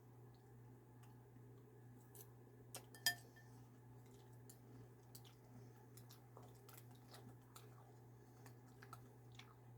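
Near silence with faint scattered clicks and one short, sharp clink about three seconds in, like a spoon touching a cereal bowl.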